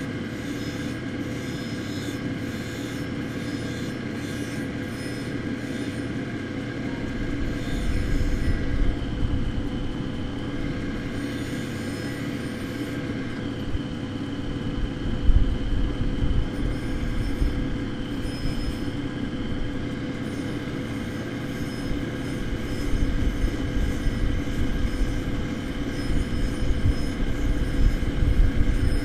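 Diamond wheel of a cabbing machine running wet while it grinds a dichroic fused-glass cabochon held on a dop stick: a steady motor hum with a rough grinding noise. From about seven seconds in, a louder low rumble swells and fades several times.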